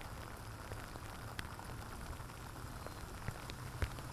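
Steady rain falling, an even patter with scattered sharp drips of single drops.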